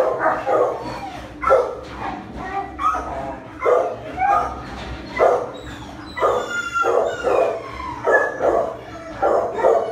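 Dog barking repeatedly, about one bark a second, with a high whining yelp about six seconds in.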